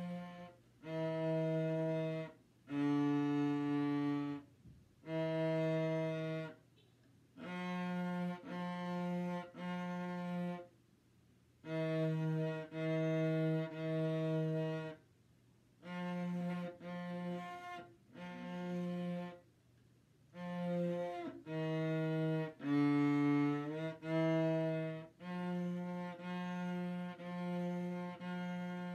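Solo cello played with the bow: a slow melody of separate held notes, each about a second long, in short phrases with brief pauses between them.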